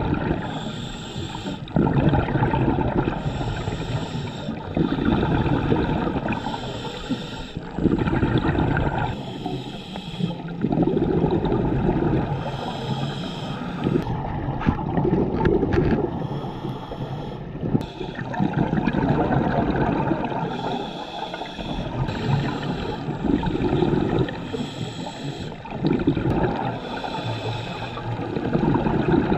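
Scuba diver breathing through a regulator underwater: a hissing inhale alternating with a rumble of exhaled bubbles, repeating about every three seconds.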